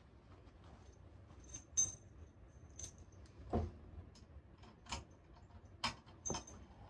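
About half a dozen scattered sharp metallic clicks and clinks from hands working at the motorcycle, the loudest about two seconds in with a short ringing note, and one duller knock in the middle. The engine is not running.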